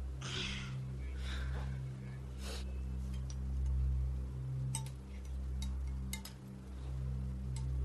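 A metal spoon clinks a few times against a china soup bowl during a meal, with soft rustling, all over a steady low hum.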